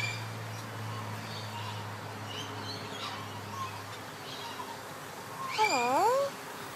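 Male Eclectus parrot giving faint short chirps, then, about five and a half seconds in, one loud call whose pitch dips down and comes back up.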